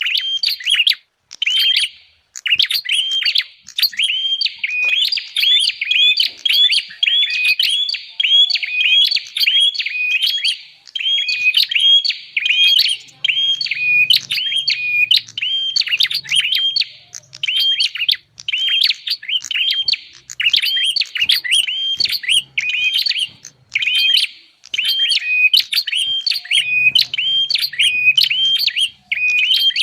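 Prinia (prenjak) calls, played as a bird-trapping lure recording: a continuous run of sharp, repeated chirps, two or three a second, with a few short breaks.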